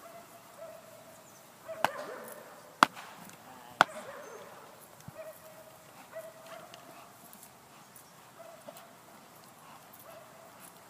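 Three sharp cracks about a second apart, from the decoy's stick striking during a young dog's bite work. A faint high dog whine comes and goes between them.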